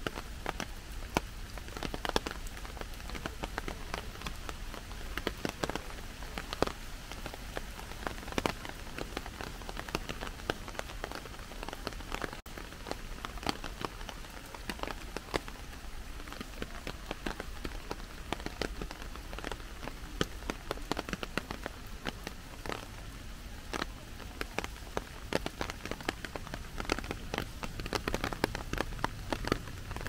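Steady heavy rain, with big drops tapping irregularly and densely on a clear plastic umbrella held overhead.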